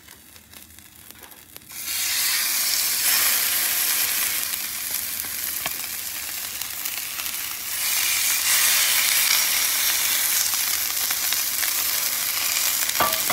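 Chuck eye steaks sizzling as they hit a lightly oiled flat top griddle preheated to about 470°F. A steady hiss starts suddenly about two seconds in and gets louder about eight seconds in, when the second steak goes down.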